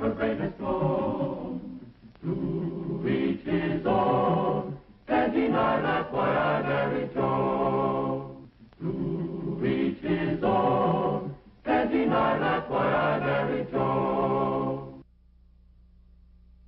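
Choir singing a sitcom's closing theme song in phrases with short breaks, stopping about fifteen seconds in and leaving only a faint low hum.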